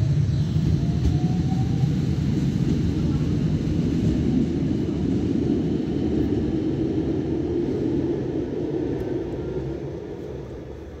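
CRRC light-rail tram running, a loud low rumble with a faint rising whine in the first few seconds; the rumble fades away over the last few seconds as the tram moves off.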